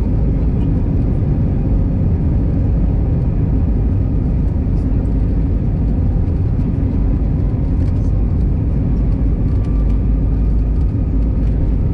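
Steady low rumble inside the cabin of an Airbus A320 rolling on the ground, its jet engines running, with a faint whine rising slightly late on.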